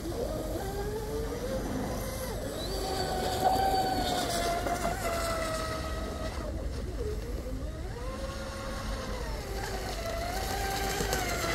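Deltaforce Vortex 34 RC hydroplane's motor whining as it runs on the water, the pitch rising and falling every few seconds as the throttle is worked.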